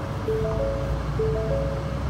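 Ford F-250 instrument-cluster warning chime, a three-note ding repeating about once a second, warning that the parking brake is engaged. It stops near the end. Underneath, the truck's 6.7L Power Stroke V8 diesel idles with a steady low hum.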